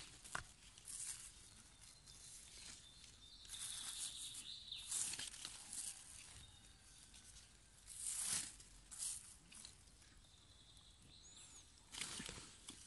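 Thin plastic grafting film rustling and crinkling in irregular scrapes as it is wound tightly around a pomelo fruit graft to seal the cut.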